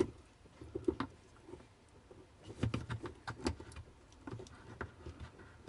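Scattered light clicks and knocks of hands working a plastic push-fit water pipe connector that has just been opened and is leaking water.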